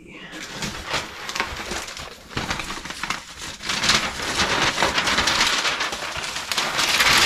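Crinkling and rustling of plastic packing material being handled, a dense run of small crackles that grows louder a couple of seconds in.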